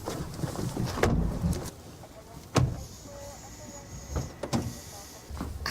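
Several sharp knocks or thumps, one to a second and a half apart, with two close together near the end, over a low background rumble.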